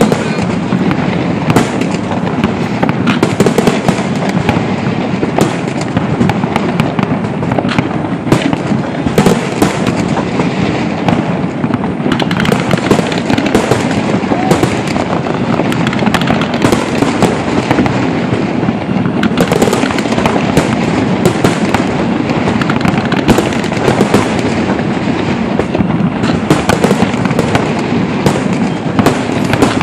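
Fireworks display in full barrage: a dense, continuous stream of bangs and crackles overlapping one another without a pause.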